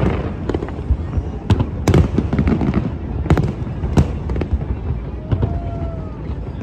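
Fireworks bursting overhead: a rapid, irregular run of sharp bangs and crackles over a continuous low rumble, with a brief whistling tone about five seconds in.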